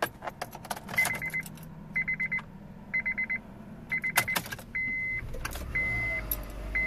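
2008 Honda Civic Hybrid being started from the driver's seat: key and ignition clicks, and a dashboard warning chime beeping in quick bursts about once a second that turn into single longer beeps about once a second. A low, steady engine hum comes in about halfway through as the engine starts and idles on the new serpentine belt.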